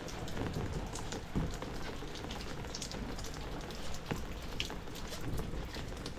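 Rain falling steadily, with many individual drops tapping sharply on an umbrella overhead, scattered irregularly throughout.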